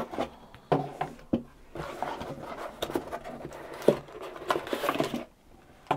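Cardboard packaging being handled: the flaps of a small inner accessory box are lifted and folded back and hands reach inside, giving irregular rustles and scrapes with a few sharp taps. The handling stops about five seconds in.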